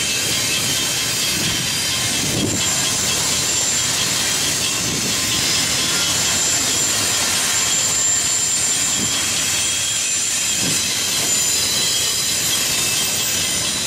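Union Pacific freight train's double-stack container well cars rolling past at steady speed: a loud continuous rumble of steel wheels on rail, with thin high-pitched wheel squeal and a few low clunks as the cars go by.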